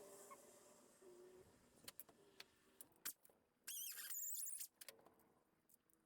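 Faint clicks and taps from small parts being handled, with a brief high, wavering squeak about four seconds in.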